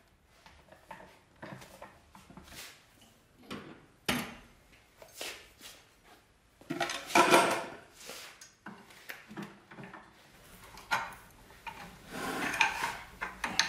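Workshop handling sounds: metal parts and hand tools clinking, knocking and scraping irregularly, the loudest clatter about seven seconds in.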